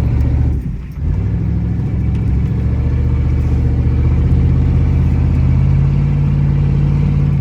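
Ford 460 big-block V8 held at high revs under load, with a short dip just before a second in. The truck's tires are spinning for grip on snow, hard enough to burn front tire rubber.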